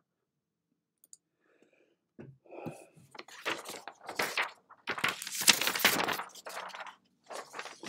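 Sheets of paper being handled and moved about on a desk, rustling and crinkling in irregular bursts that are loudest about five to six seconds in.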